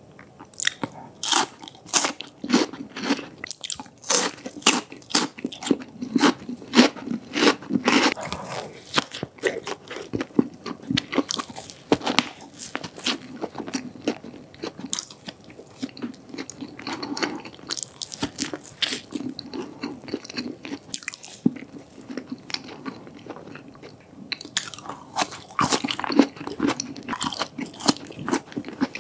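Close-miked eating of pink sweets, a pink KitKat wafer bar among them: many crisp crunching bites in quick succession, with softer chewing between them. The crunching is thickest in the first dozen seconds and again near the end.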